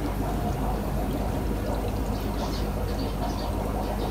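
Aquarium water bubbling steadily from air rising through a sponge filter, over a low steady hum.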